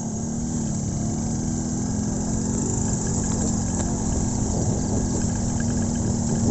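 Motorcycle engine running steadily under way on a rough dirt road, a constant drone with no change in speed.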